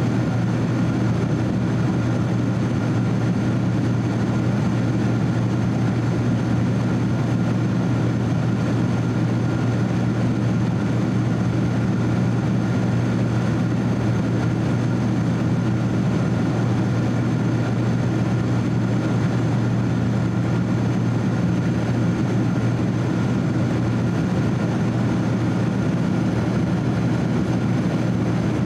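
Steady in-flight cabin noise of a Boeing 767-300 airliner: a constant low drone from its jet engines and the airflow over the fuselage, with a faint steady high whine above it.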